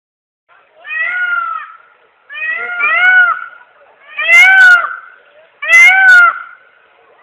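Peacock calling: four loud, meow-like wailing calls, each about a second long and arching up then down in pitch. They begin about a second in and follow one another roughly every one and a half seconds.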